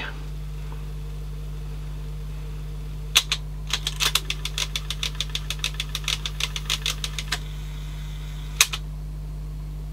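Teac CX210 cassette deck's tape mechanism running with a cassette loaded, over a steady low hum. A click comes about three seconds in, then a fast run of clicks, several a second, for about three and a half seconds, and a single click near the end.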